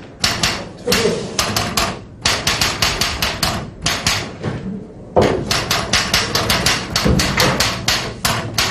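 Rapid series of sharp, hard clacks, several a second, in runs broken by short pauses.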